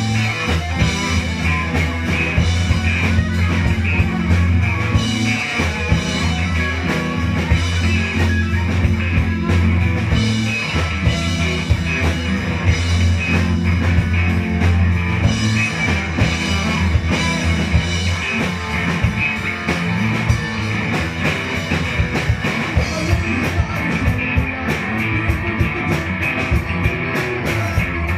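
Live band playing with electric guitars and a drum kit, the music loud and continuous with a strong low end.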